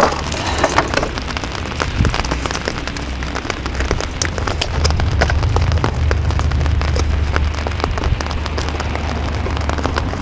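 Rain falling on an open umbrella overhead, a dense, irregular run of sharp ticks, over a steady low rumble.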